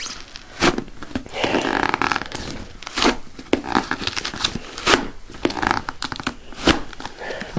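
A dull pocket knife sawing through a corrugated cardboard shipping box: scraping, tearing cardboard, with a few sharp clicks in between as the blade struggles to cut.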